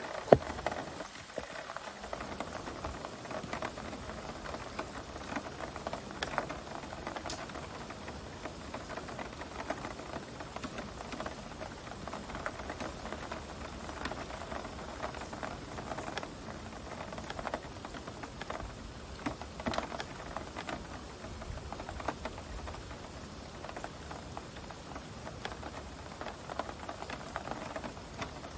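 Heavy rain pouring steadily, a dense patter of drops striking surfaces. One sharp click sounds just after the start.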